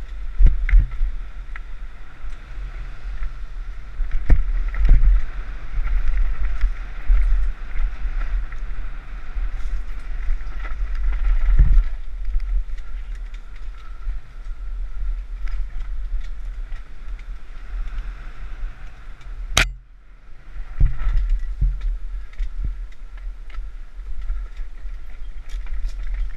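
Mountain bike descending a rough trail, heard from the rider's onboard camera: a constant rumble of wind and trail buffeting on the microphone, with tyre noise and frequent chain and frame rattles. A single sharp knock comes about three-quarters of the way through.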